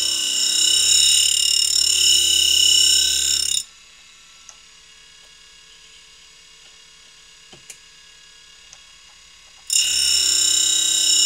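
CUTTERMASTER CM-01P tool and cutter grinder running with a steady high-pitched whine of several tones over a low hum. It cuts out abruptly about three and a half seconds in, leaving quiet room tone with a few faint clicks, and comes back just as abruptly near the end.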